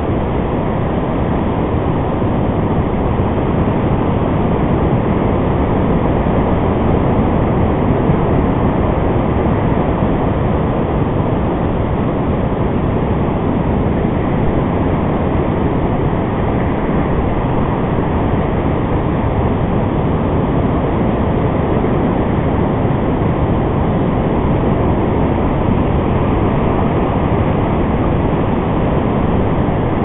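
Steady, loud rushing noise of ocean surf mixed with wind on the microphone.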